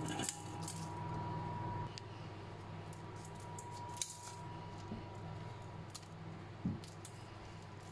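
Metal kitchen scissors snipping dried red chilies lengthwise: a few scattered crisp snips, over a steady low hum.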